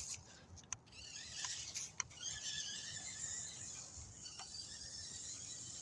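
Toy RC truck's small electric motor and gears running with a faint, steady high-pitched whine, after a few sharp clicks in the first two seconds.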